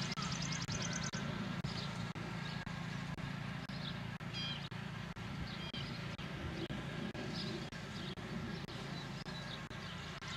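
Riding lawnmower engine running steadily, a low hum with short high chirps now and then above it.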